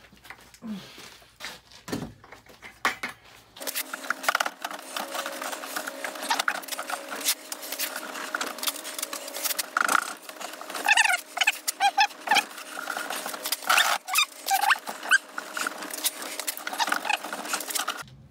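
Concrete mix being hand-packed into a wooden box mold: a busy clatter of scraping and tapping, which turns denser and brighter about three and a half seconds in. Short high chirps come through in the second half.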